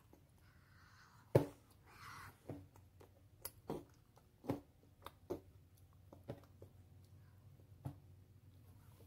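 Close-up mouth sounds of eating with the fingers at the lips: wet lip smacks and chewing, about eight sharp clicks at uneven intervals, the loudest a little over a second in, with faint breathing between them.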